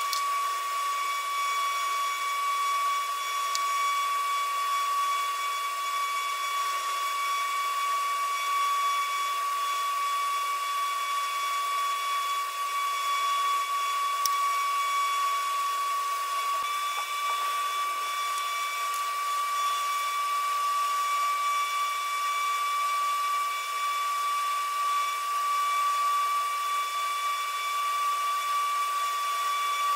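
A steady high-pitched whine over a hiss, from a small motor running without a break.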